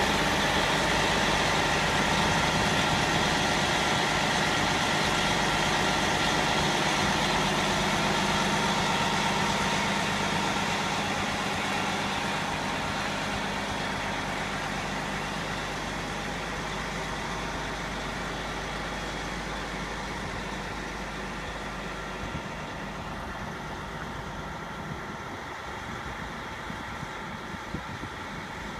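Prevost H3-45 coach's rear-mounted diesel engine idling steadily, growing gradually fainter as it is heard from further toward the front of the coach.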